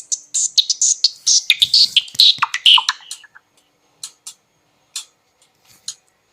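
A Nokia Lumia 925 stock ringtone playing: a fast run of short, high electronic clicks and chirps with a few falling tones about two seconds in, thinning to scattered clicks after about three seconds.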